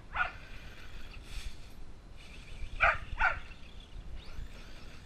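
Husky barking in short, pitched barks: one just after the start, then two loud ones in quick succession about three seconds in.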